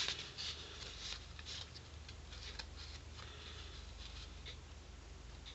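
Faint handling sounds of paper crafting: light rustles and small scattered clicks as adhesive goes onto the back of a ribbon, over a steady low hum.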